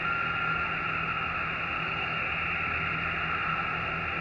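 Receiver noise from a Xiegu X6100 HF transceiver in SSB (USB) on the 20 m band while the dial is tuned across it: a steady hiss with a low hum under it, and a short thin whistle of a carrier about half a second long at the start.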